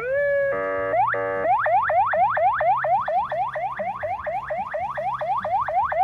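Electronic multi-tone car alarm siren cycling through its patterns: a short gliding tone, two brief buzzing blasts, then rapid rising whoops repeating about three or four times a second.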